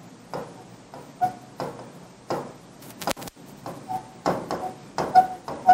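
Marker pen writing on a whiteboard: a quick run of short scratchy strokes, some with a brief squeak, as letters are written.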